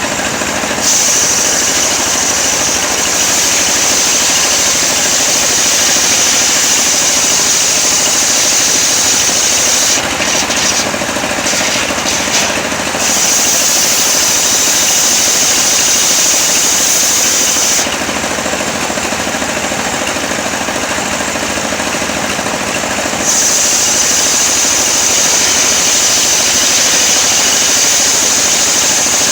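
Engine-driven portable sawmill running steadily while its saw rips lengthwise through coconut wood, with a high cutting whine over the engine. The whine drops away twice, for a few seconds each time, while the engine keeps running.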